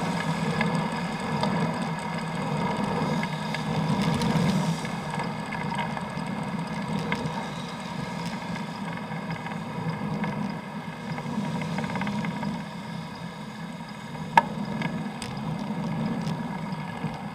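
Steady rumble of riding noise, wind and tyres on the road, picked up by a bicycle-mounted G-EYE action camera, with one sharp click about fourteen seconds in.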